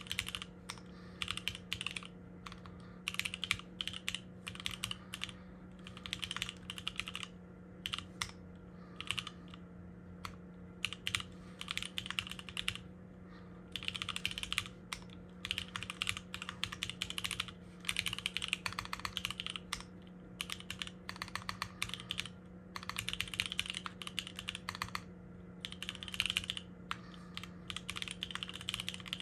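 Typing on a custom 60% mechanical keyboard fitted with lubed NovelKeys Cream linear switches, an FR4 plate and Staebies stabilizers. Runs of fast key presses are broken by short pauses.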